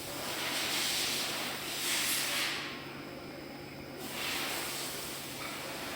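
Orbital TIG welder with its weld head running a test program: a steady hiss, stronger for the first couple of seconds and again a little after the middle, over a faint low hum.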